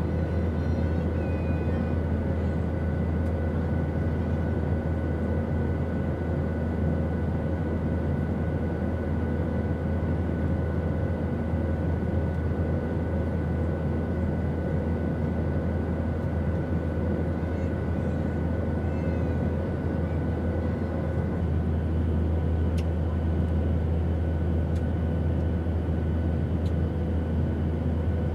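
Airplane noise: a steady low drone under an even hiss, with a few faint steady whining tones. About three-quarters of the way in, one high tone stops and a slightly higher one takes its place, and there is a faint tick shortly after.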